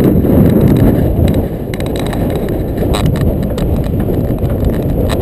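Low rumble and buffeting of a vehicle driving a rough dirt track, picked up by a mounted action camera, with a rapid, irregular rattle of knocks from the bumps.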